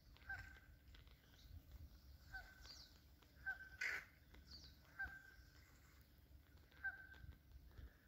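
Faint, short bird calls, about five of them a second or two apart, with fainter high chirps between. There is a brief louder noise about four seconds in.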